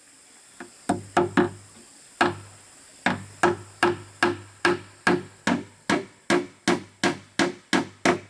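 Hammer striking wood: a light tap, three quick blows, a pause, then a steady run of about fourteen strikes at a little under three a second.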